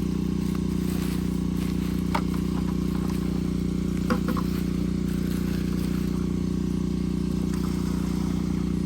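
DJI Agras T20 crop-spraying drone's rotors humming steadily at one pitch, with two brief short sounds about two and four seconds in.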